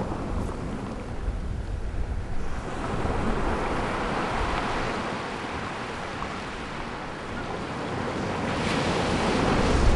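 Ocean surf washing onto a beach in slow swells, building about two and a half seconds in and again toward the end, with wind rumbling on the microphone.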